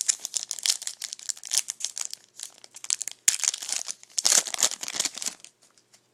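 Foil trading-card pack wrapper being torn open and crinkled in the hands, a dense run of crackling that dies away about five and a half seconds in.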